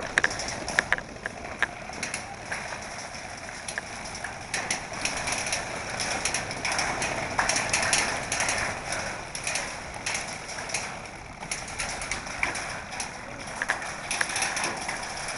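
Footsteps and rustling of gear as airsoft players move, with many short, irregular clicks and scuffs.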